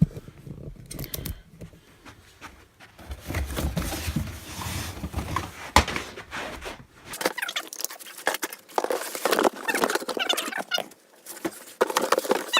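Fire alarm devices being handled and rummaged through: irregular clicks, knocks and rustling as they are picked up, turned over and set down.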